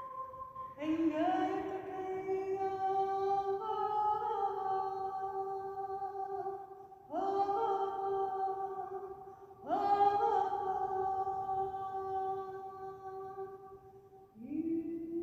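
A woman singing long, held wordless notes of a chant, four phrases each sliding up into the note, with short breaths between.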